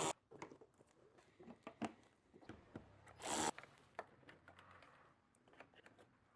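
Faint clicks and knocks of a hand tool and plastic headlight parts being handled while the mounting bracket is unscrewed, with one brief louder rasp about three seconds in.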